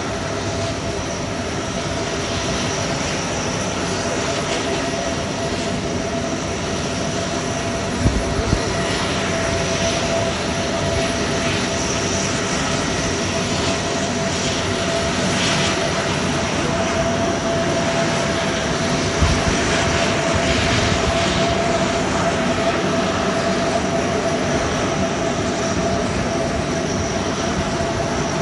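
Four-engined turboprops of Lockheed P-3K2 Orions running on the ground, a steady engine drone with a held whine. Two brief thumps break in about a third and two-thirds of the way through.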